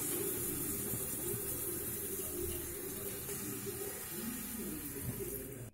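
Water pouring in a steady stream from a small steel tumbler into a pot of potato and vegetable curry.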